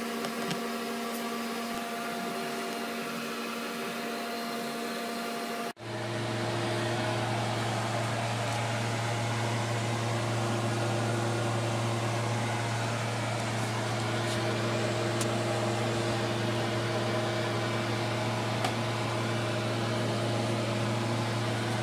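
Steady mechanical hum made of several fixed tones, cut off sharply about six seconds in and followed by a different, lower and stronger steady hum.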